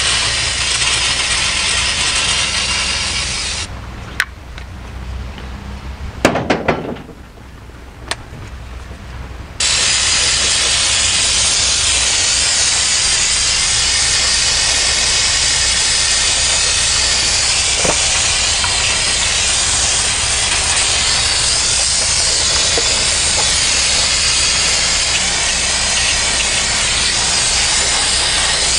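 Aerosol can of brake cleaner spraying onto a drum brake assembly with a steady loud hiss. The spray stops about four seconds in as the nearly empty can runs out, a few sharp knocks follow, and at about ten seconds a fresh can takes over and hisses steadily.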